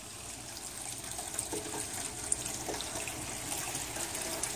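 Water running steadily as it circulates through an aquaponics system of fish tank, sump tank and grow beds.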